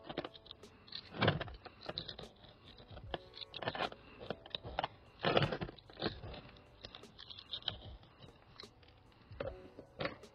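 Gritty bonsai soil being poked and worked into a pot by hand: irregular scraping, rattling and small knocks, with a few louder scrapes.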